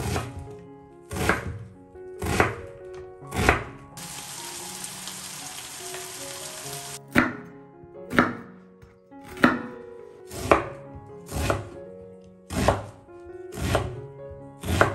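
Chef's knife chopping an onion on a wooden cutting board, one sharp chop roughly every second, over soft background music. A steady hiss replaces the chops for about three seconds in the middle, then the chopping resumes.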